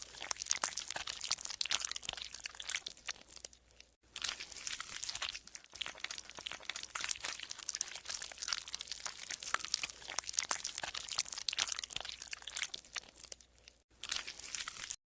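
Golden slime being squeezed and pressed by hand, making dense crackling, popping and squelching sounds in runs of a few seconds with brief pauses between them.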